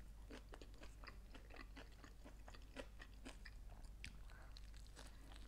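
Faint chewing and biting of a toasted grill-pressed sandwich: a steady run of small crunches and clicks, several a second.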